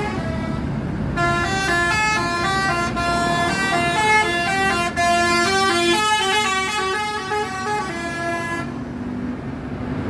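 Bus telolet horn, a multi-tone air horn, playing a quick tune of stepping notes from about a second in until near the end, over the low rumble of the bus engine.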